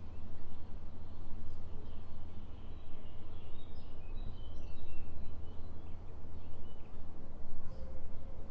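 Birds chirping outside, short high notes in a run through the middle, over a steady low hum of room tone.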